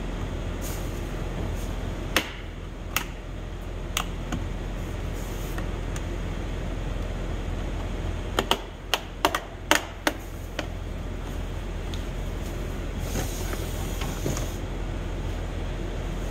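Sharp plastic clicks as the rubber window seal and its clips are pried out of a BMW X7 rear door frame with a plastic trim tool: a few single clicks, then a quick run of about six near the middle. A steady low shop hum runs underneath.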